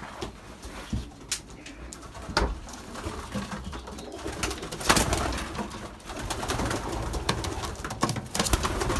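Racing pigeons cooing inside a loft, with scattered knocks and clatter and bursts of rustling.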